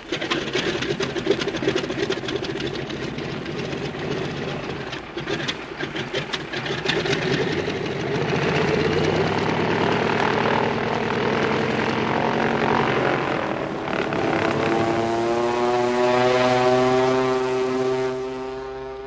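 Piston propeller aircraft engine as a sound effect: popping and crackling for the first several seconds, then running steadily, its pitch rising over the last few seconds as it speeds up.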